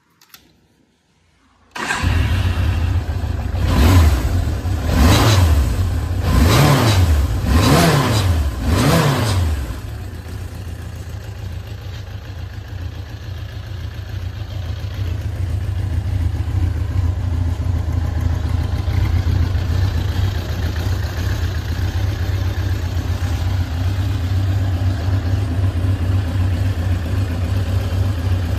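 Suzuki GSX750S3 Katana's air-cooled inline-four motorcycle engine starting up about two seconds in, then revved five times with the pitch rising and falling, then settling into a steady idle.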